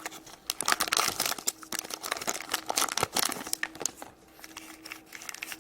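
A Shopkins foil blind bag crinkling and crackling as it is torn open by hand, busiest over the first few seconds and lighter near the end.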